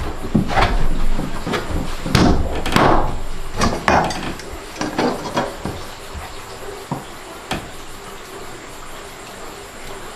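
Wooden wall boards knocking and scraping as they are pushed and fitted into place, with several knocks in the first half and a couple of sharp clicks later on.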